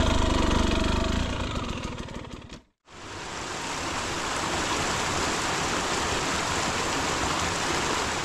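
Husqvarna TE250i two-stroke engine running at low revs and fading away over the first two seconds or so. After a short break, a steady, even rushing noise with no engine in it takes over.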